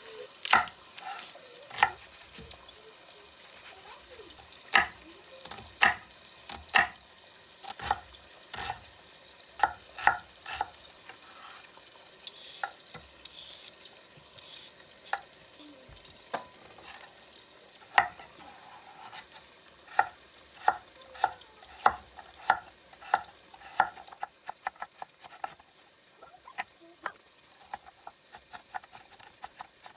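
A utensil stirring in a cooking pot, clinking and knocking against its sides at irregular moments, then in quicker runs of clinks near the end.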